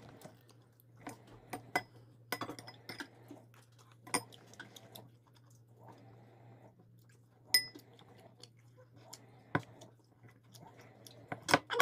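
Metal spoons clinking and scraping against stainless steel and ceramic soup bowls as soup is served and eaten, a dozen or so scattered sharp clinks, a few of them ringing briefly.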